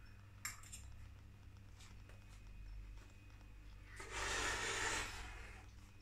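A person chewing a mouthful of steak bake quietly, with a short click about half a second in and a breathy exhale lasting about a second around four seconds in.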